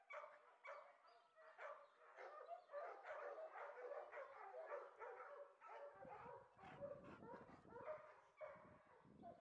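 Dog whining and yipping in a run of short, high calls, faint throughout.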